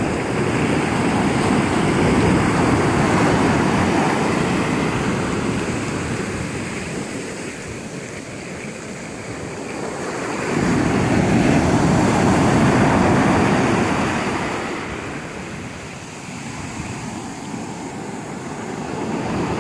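Atlantic Ocean surf breaking and washing up the beach, a steady rush of water that swells and ebbs, with two louder surges about ten seconds apart.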